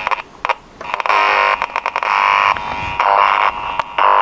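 Clock radio speaker driven by a home-wired Bluetooth board, giving a harsh, distorted buzz that cuts in and out in bursts about once a second. The board's supply is pulsing on and off and overdriving the 5-volt board with 12 volts.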